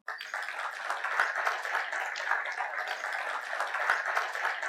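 Audience applauding: many hands clapping in a dense, steady patter that starts abruptly.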